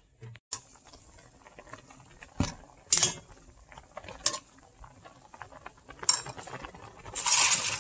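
Metal spoon clinking and scraping against a soup pot. Scattered sharp clinks, the loudest about three and four seconds in, then a short burst of hissing noise near the end.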